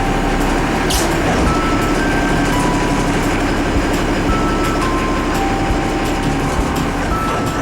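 Boat engine running steadily under loud rushing wind and water noise. A slow tune of single held notes plays over it, one note about every half second.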